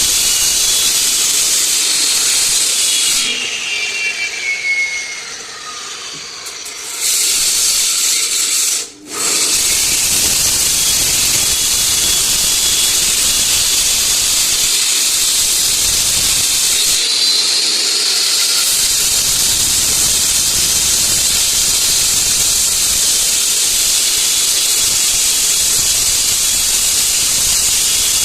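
Concrete slab cutting saw with a 16-inch blade running, a loud steady grinding hiss. About three seconds in it eases off with a falling whine, comes back up near seven seconds, and cuts out briefly near nine seconds before running steadily again.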